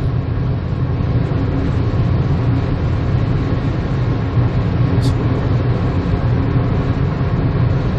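Steady road and engine rumble inside a Kia Morning's cabin while it drives on the highway, with one brief tick about five seconds in.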